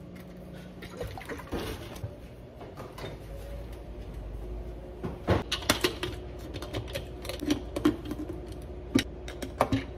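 Kitchen handling sounds: a refrigerator door opened and a plastic pitcher set inside, then a run of sharp clicks and knocks from about halfway as containers and a tumbler lid are handled.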